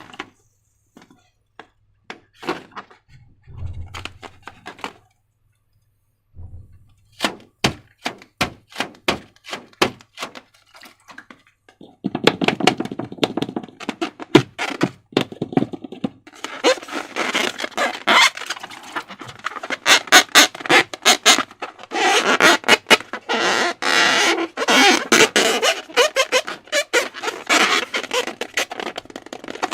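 Slime being worked by hand, giving sticky clicks and crackles. The clicks are sparse taps at first and become a dense, continuous crackle from about halfway through.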